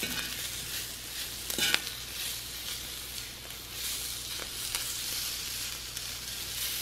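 Cubed beaver loin, green pepper and onion sizzling on a hot flat-top griddle while being stirred with a metal fork, with a few sharp clicks of the fork against the griddle, the loudest a little under two seconds in.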